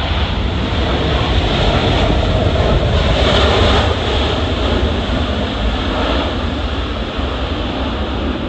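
Jet airliner passing close by, a loud rushing engine noise that swells to its peak about three seconds in and then eases off.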